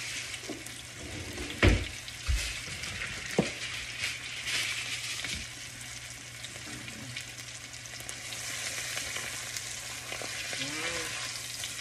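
Prime rib steak sizzling steadily as it sears in hot oil in a frying pan, with a few short knocks in the first few seconds.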